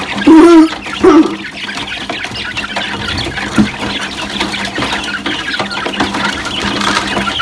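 A flock of young poultry calling and peeping while they crowd in for feed, with two loud calls in the first second or so.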